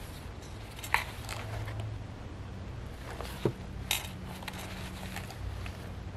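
Handling a handmade junk journal: pages turned and the cover closed, with three sharp clicks and knocks, one about a second in and two close together past the three-second mark. A faint low steady hum runs underneath.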